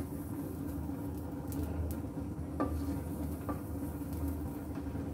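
Cooking oil heating in a hot karai on a gas stove, sizzling faintly over a steady low hum, with a couple of faint ticks about halfway through.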